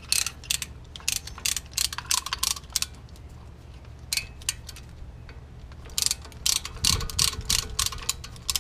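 Hand ratchet wrench clicking in quick bursts as a bolt is run in, with the densest stretch of ratcheting in the last few seconds.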